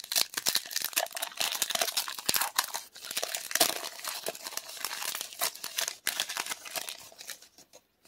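Crinkling and tearing of a Magic: The Gathering booster pack's plastic-foil wrapper as it is torn open, a dense crackle that thins out near the end.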